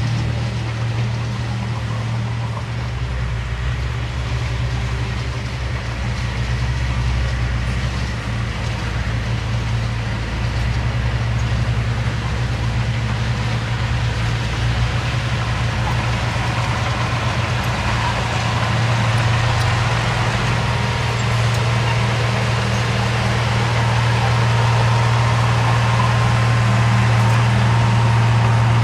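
Diesel engine of heavy earthmoving equipment running steadily with a constant low hum, growing somewhat louder over the last third.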